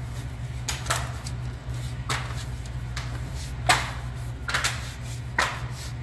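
The plastic bottom cover of a Toshiba 17.3-inch laptop snapping into place clip by clip as it is pressed shut: a series of about six sharp plastic clicks at uneven intervals, over a steady low hum.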